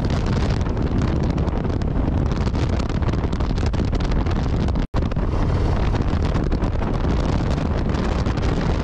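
Wind buffeting the microphone of a 2022 Harley-Davidson Low Rider ST riding at road speed, with the low rumble of its V-twin engine underneath. The sound drops out sharply for an instant about five seconds in.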